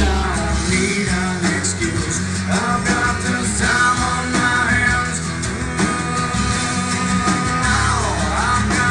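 A rock song with singing and guitar, played back through a small desktop speaker under test and picked up by a microphone. The deep bass drops out after the start and comes back near the end.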